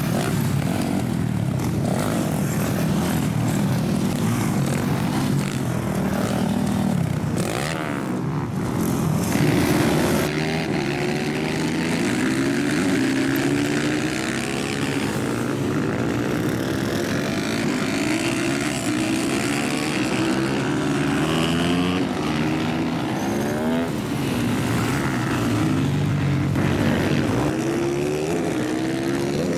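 Several supermoto motorcycle engines running hard, overlapping, their pitch climbing and dropping again and again as the riders rev and shift.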